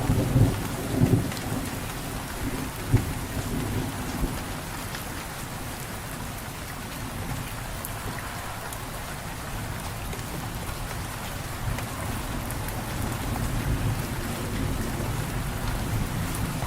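Steady rain falling, with low rolling thunder: a heavy rumble fades away in the first couple of seconds, and another rumble builds slowly near the end.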